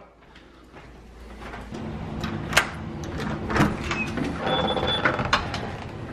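Footsteps and the rumble of a handheld phone camera being carried, with a few sharp clicks as a front door is unlatched and pulled open.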